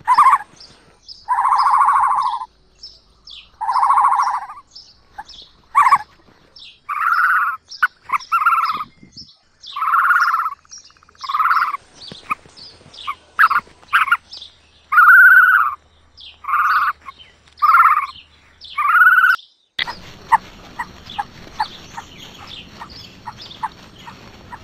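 Ostrich chicks calling: a series of about a dozen short, rounded calls over a faster chatter of high chirps. Shortly before the end the rounded calls stop and only scattered chirps remain over a steady hiss.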